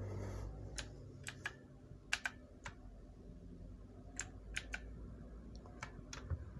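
Motospeed CK104 mechanical keyboard with clicky Outemu Blue switches: about a dozen separate key presses, each a sharp click, spaced irregularly.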